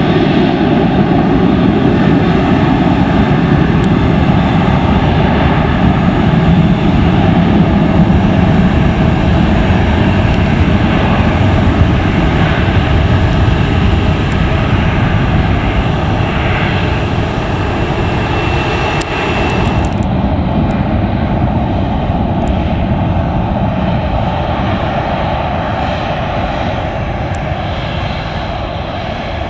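Boeing 737-800's CFM56 jet engines running loud and steady at high power as the airliner rolls down the runway, slowly fading as it draws away. About two-thirds through, the sound changes suddenly to a second 737's engines running at lower power as it taxis close by.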